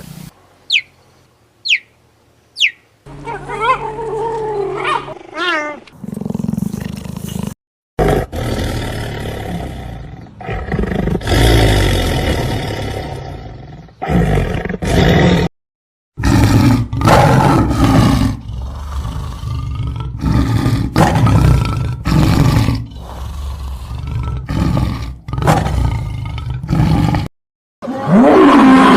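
Big cats, lions and tigers, roaring in a series of separate clips cut together with abrupt breaks: long rough roars, then runs of short repeated roaring calls.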